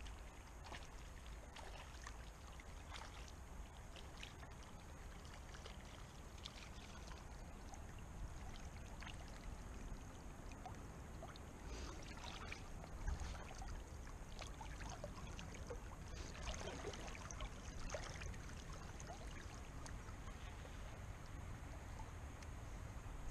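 Shallow river water splashing and sloshing as a hooked fish thrashes near the surface and is taken in hand, over the steady run of the river. The loudest splash comes about 13 seconds in.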